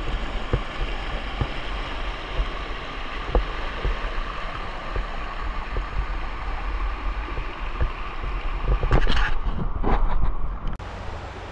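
Creek water rushing steadily, with wind buffeting the microphone and a few light clicks. It swells louder shortly before the end, then drops off abruptly.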